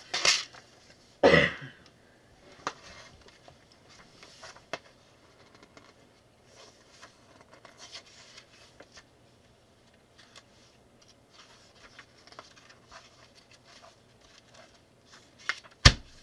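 Paper rustling and light handling noises as a paper instruction booklet is leafed through, with a couple of louder rustles in the first two seconds and a single sharp knock near the end.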